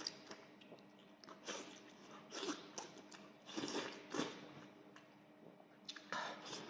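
Close-miked eating sounds: a person chewing and smacking, in short irregular bursts with quiet gaps between.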